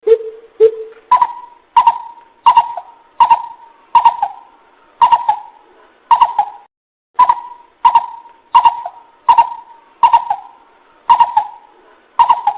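Coucal (bubut) hooting call in a long, evenly paced series of deep notes, roughly one to two a second, with two lower notes at the start and a brief pause about halfway. This is a lure recording played to call in other coucals.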